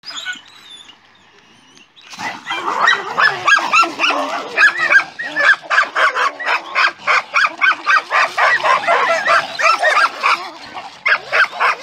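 Dogs fighting: a dense, continuous barrage of overlapping barks and yelps, several a second, starting about two seconds in.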